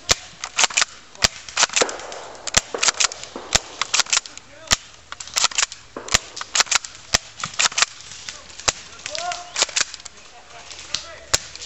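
Airsoft guns firing in a skirmish: many sharp cracks, irregular and at differing loudness, some coming in quick clusters close together.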